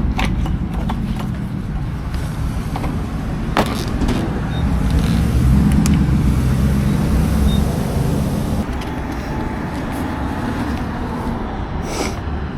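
Husqvarna Svartpilen 401's single-cylinder engine running under way at low revs. The note builds a couple of seconds in and eases off again after about eight seconds, with a few sharp clicks.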